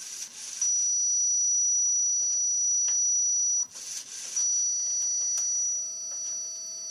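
A robot door alarm sounding a steady high-pitched electronic tone, broken by a short burst of noise at the start and again about 3.7 seconds in.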